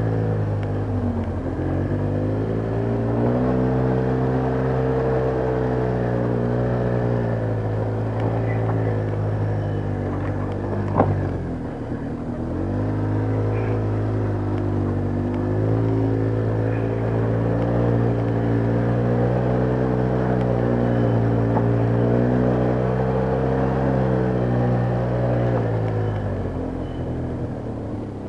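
ATV engine running on a rough trail, its pitch sagging and climbing again as the throttle is eased off and reopened: dips about a second in, around twelve seconds in and near the end. A single sharp knock about eleven seconds in.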